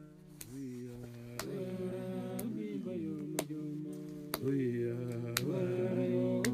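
Background music of sustained, slowly shifting held tones over a slow steady beat, one sharp strike about every second.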